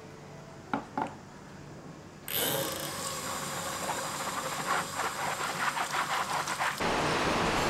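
Dishes being washed in a stainless steel sink: two light clinks of a ceramic bowl, then a tap runs onto the bowl from a little past two seconds, with scattered clinks of the dish. Near the end this gives way to steady rain.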